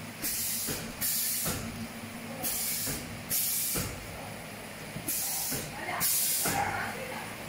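Pneumatic valves and air cylinders on an automatic glass-film laminating machine venting compressed air: six short hisses in three pairs, over a steady low machine hum.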